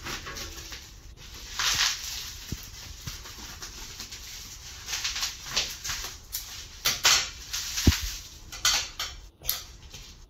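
Plastic wrapping bag rustling and crinkling in several short bursts as it is cut and pulled open, with a couple of light knocks.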